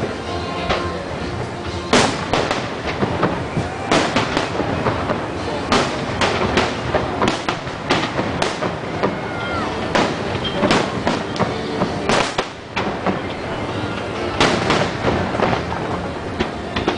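Aerial fireworks in a grand finale: shell bursts bang every second or two over a continuous rough crackle of smaller reports.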